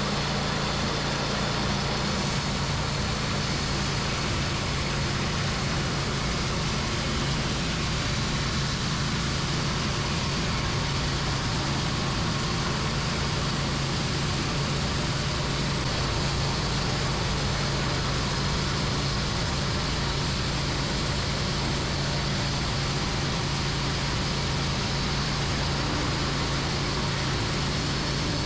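Homemade band sawmill running, its engine going steadily at one speed with a dense, even mechanical noise over it.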